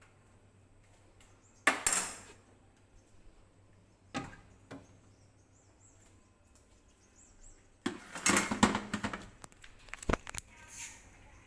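Clattering and knocking of hard objects being handled: a short bout of clatter about two seconds in, then a longer run of sharp knocks and rattles from about eight to ten seconds.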